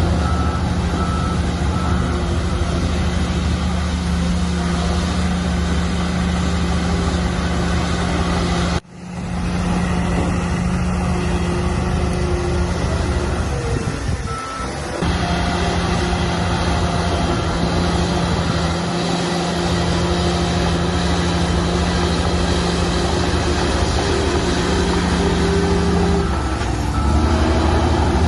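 Heavy diesel engines of earth-moving machinery running steadily, with a reversing alarm beeping near the start. The sound drops out briefly about nine seconds in, and the engine note changes near the end.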